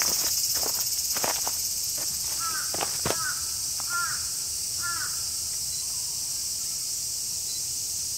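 Footsteps on a dry leaf-litter path for the first few seconds, over a steady high-pitched drone of insects. In the middle a bird calls four times, each a short arched note.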